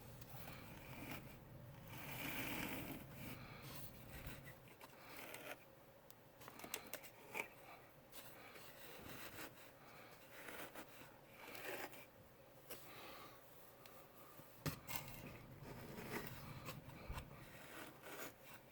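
Faint, irregular rustling and scraping of steel wool being pulled apart and stuffed into gaps in an open stud wall, with a few sharp ticks.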